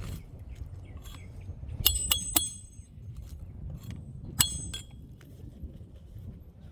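Roofer's hatchet driving roofing nails into an asphalt shingle: three quick, ringing metal-on-metal strikes about two seconds in, then one more about two seconds later.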